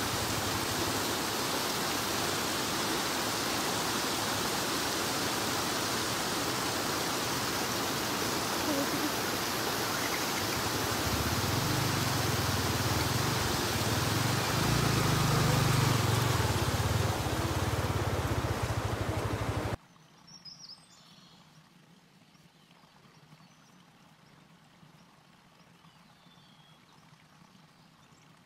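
Rushing stream water mixed with the low running of a Yamaha R15's single-cylinder engine as the motorcycle rides through a ford; the engine swells in the middle. About 20 s in the sound cuts off abruptly to a quiet scene with a few faint bird chirps.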